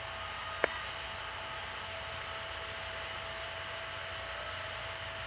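Steady background hiss with a faint steady hum, and one sharp click just under a second in.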